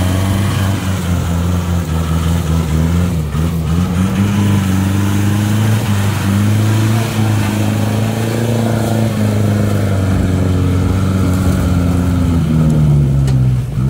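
An off-road Jeep's engine revving hard under load as its wheels spin through deep mud. The revs rise and fall as the throttle is worked, then drop sharply near the end.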